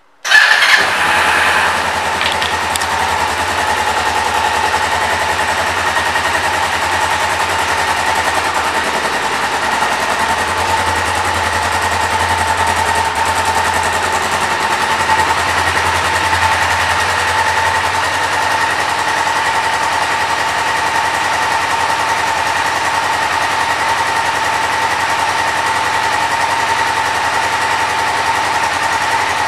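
2007 Kawasaki Ninja 500R's parallel-twin engine starting with a brief louder burst about half a second in, then idling steadily. Its low exhaust note grows stronger for several seconds midway.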